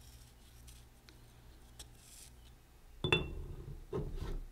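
Faint scratching for a few seconds, then a sharp metallic clink with a short ring, followed by a couple of duller knocks: the steel slide of a cast-iron machinist vise being set into its greased body.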